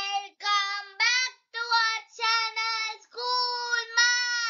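A child's voice singing a short unaccompanied jingle of about eight held notes, the last note long and starting to slide down in pitch near the end.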